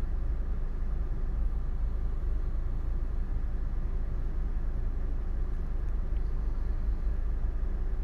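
Steady low background rumble with no distinct events.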